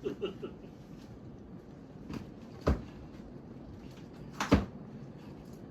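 Two sharp knocks about two seconds apart, the second louder and preceded by a smaller click, like a door or cupboard being shut.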